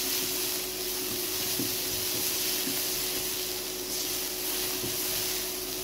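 Chopped onion and vegetables sizzling gently in oil in a non-stick kadai, a soft steady hiss with a few light scrapes of a wooden spatula stirring. A steady hum runs underneath.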